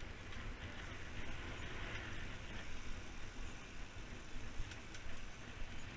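Steady rushing of wind on the microphone of a moving mountain bike, with its tyres rolling over a concrete path.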